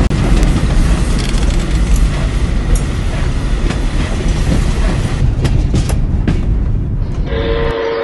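Steam train running: a dense, loud rumble with scattered clicks of wheels on rail. About seven seconds in, the rumble gives way to a steam whistle starting to blow, a steady chord.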